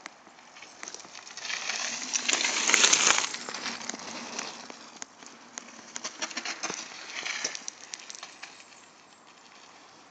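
Mountain bike tyres rolling over a dirt forest trail, with a rough rushing noise full of small clicks and rattles. It is loudest from about a second and a half to three seconds in, and swells again around seven seconds.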